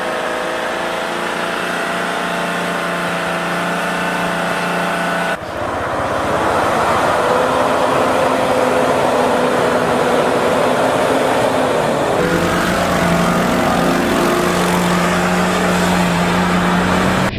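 Off-road 4x4 engines running at steady revs, in three clips joined by sudden cuts about five and twelve seconds in.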